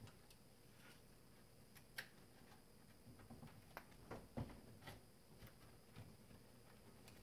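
Near silence with a few faint, scattered taps and clicks, the sharpest about two and four and a half seconds in: hands working an LED strip along the underside of a wooden kitchen cabinet.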